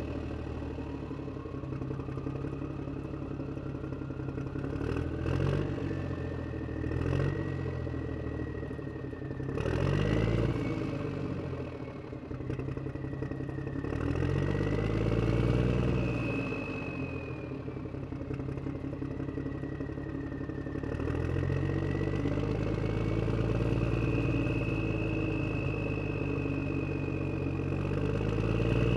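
Truck engine running and revving up and down several times, with a thin high whine that climbs over the first ten seconds and then wavers. A few clunks come in the first ten seconds.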